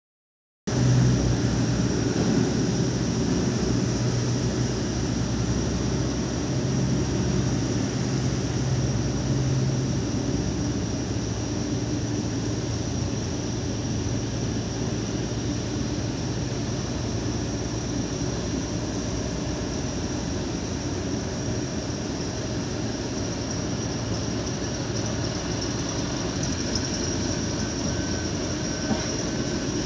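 Airbus A350-900's Rolls-Royce Trent XWB jet engines at taxi power: a steady jet hum with a thin high whine, the low hum a little louder in the first ten seconds and then easing as the aircraft moves on.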